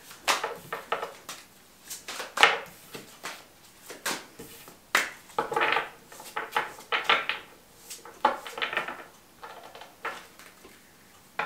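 A deck of tarot cards being shuffled by hand: a run of irregular papery slaps and flicks, with a few short rustling stretches.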